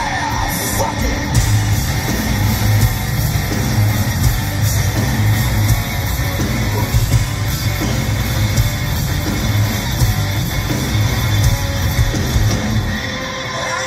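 Rock band playing live at full volume, heard from the audience: distorted electric guitars, bass and drums.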